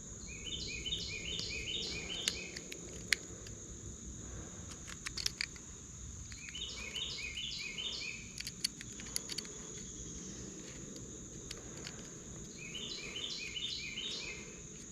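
Scattered light clicks and taps of hand work on a truck door latch and its cable, against a steady high insect trill. A songbird sings a short phrase of quick stepped notes three times, about a second in, near the middle and near the end.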